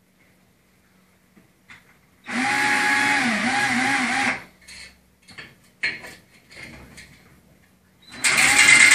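A power drill spinning a flexible chimney-sweeping rod inside a stove flue pipe. It runs for about two seconds with its pitch wavering as the speed changes, a few clicks and knocks of handling follow, and it starts up again near the end.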